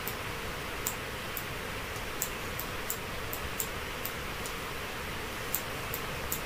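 Steady low hiss with faint, irregular clicks, about one or two a second, from the computer pointing device as numbers are handwritten on screen.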